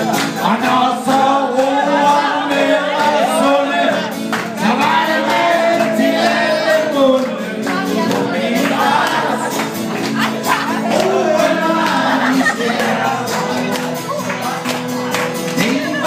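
A man singing into a microphone through a PA, accompanied by an acoustic guitar.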